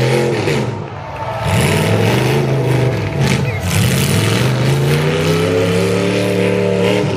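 Engines of several demolition derby cars revving up and down hard, with a couple of sharp knocks near the middle.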